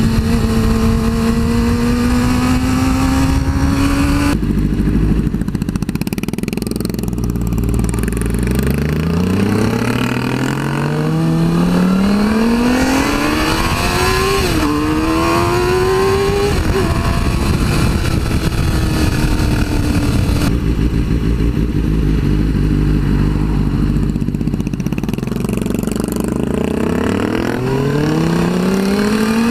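Suzuki GSX-R 600 inline-four motorcycle engine under way, its revs climbing in rising sweeps through the gears, easing off and settling, then climbing again near the end, over steady wind noise. The sound changes abruptly twice, about four and about twenty seconds in.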